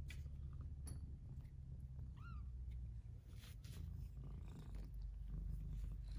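A cat purring steadily, with one short kitten mew about two seconds in and a few soft clicks of kittens scuffling on blankets.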